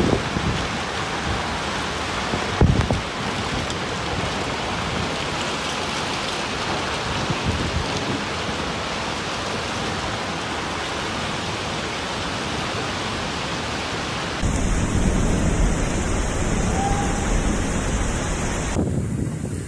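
Torrential wind-driven rain in a violent storm, a dense steady hiss, with one short loud thump about three seconds in. Later the sound turns louder and deeper, with wind rumbling and buffeting the microphone.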